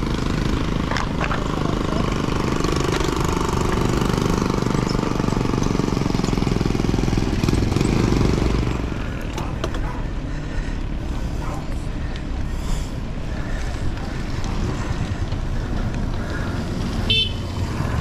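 Mountain bike riding on a dirt road: tyre rumble and wind on the microphone, louder for about the first half, with a brief higher-pitched squeak near the end.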